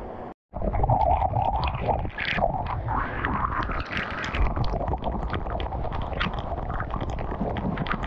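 Waterfall water pouring and splashing right onto the camera: a loud, muffled rumble full of sharp droplet hits, starting about half a second in.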